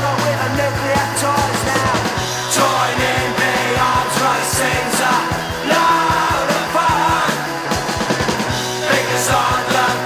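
Oi! punk rock song played from a vinyl LP: a driving band of distorted electric guitars and pounding drums, with shouted, sung vocals.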